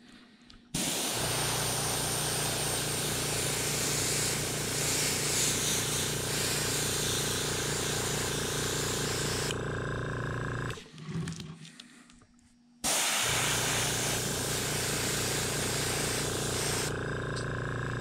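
Airbrush spraying white base coat: a steady hiss of air and paint over a low pulsing hum. It runs in two long passes with a pause of about two seconds past the middle, and each time the hiss cuts off a moment before the hum.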